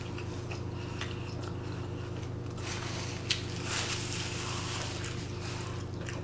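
A person chewing a mouthful of grilled chicken sandwich close to the microphone, with small wet clicks, over a steady low hum. Partway through comes a brief rustle of a paper napkin wiping the mouth.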